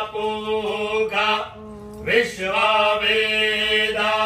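A priest's voice chanting Sanskrit mantras for a Rudrabhishek in long held, sliding tones, pausing briefly for breath about one and a half seconds in before the next phrase. A steady low hum runs beneath.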